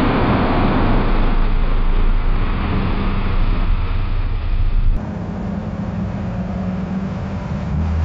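Car crash sound effect: a dense, noisy rumble and scraping that sets in just after an engine revs up, then thins out. About five seconds in it cuts abruptly to a quieter, steady rumble with a low hum.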